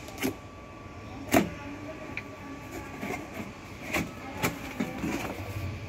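Cardboard box being opened by hand: tab flaps pulled free and the lid slid off, cardboard scraping and rustling with a few sharp knocks, the loudest about a second and a half in.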